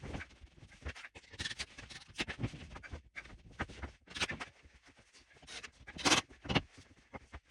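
Knocks, scrapes and rattles from OSB sheets being handled and shifted, with two sharper, louder knocks about six seconds in.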